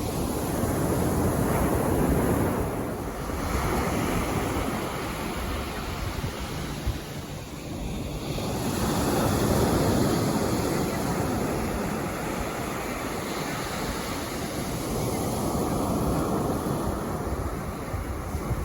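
Calm sea waves washing onto a sandy beach, the surf swelling and fading every few seconds.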